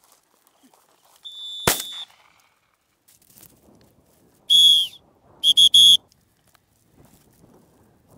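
A hunter's dog whistle blown to a German wirehaired pointer. There is a short faint toot, then one long loud blast that drops a little in pitch at the end, then three quick blasts. A single sharp crack sounds during the first toot, with faint rustling of feet in the field cover between the blasts.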